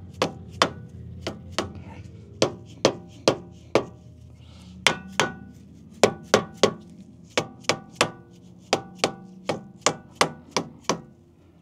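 A mallet striking the face of a Land Rover's rear brake rotor over and over, about two to three blows a second with a short pause around the middle. Each blow leaves the metal disc ringing briefly.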